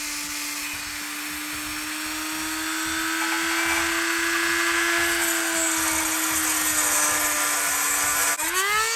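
Handheld rotary tool with a small abrasive cut-off wheel cutting through a metal handle bar clamped in a vise: a steady high motor whine with gritty grinding hiss that gets louder a few seconds in as the wheel bites. Near the end the whine dips and then climbs sharply as the wheel comes free of the metal and the motor spins up unloaded.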